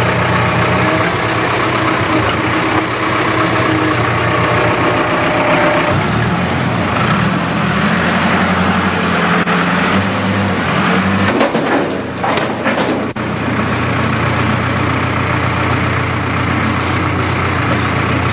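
Backhoe loader's diesel engine running loud and steady, its note changing about six seconds in as it works harder, with a quick run of sharp clanks around twelve to thirteen seconds in.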